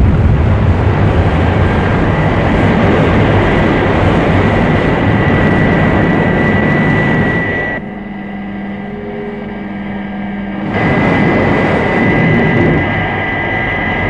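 Thunderbird 2's rocket engines firing at launch: a loud, steady rushing blast with a high whine on top. About eight seconds in it drops to a quieter, steady cockpit hum with low tones, and the full engine blast returns about three seconds later.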